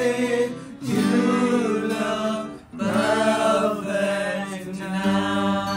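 Acoustic guitar played with two or more male voices singing along.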